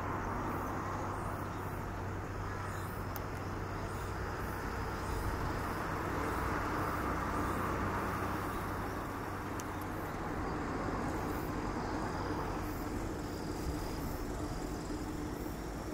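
Steady outdoor background noise: an even rushing hiss over a constant low hum, with no distinct events.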